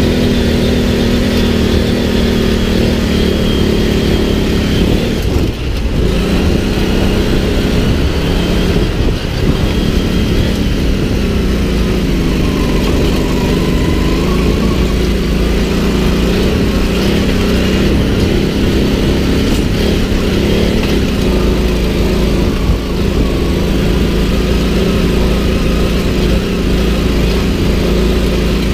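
Off-road buggy's engine running hard while driving, heard from the driver's seat, its pitch rising and falling with the throttle and dipping briefly about five seconds in.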